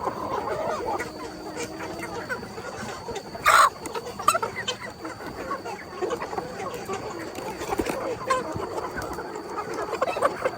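A flock of chickens clucking continuously, many birds calling over one another, with one sudden loud burst about three and a half seconds in.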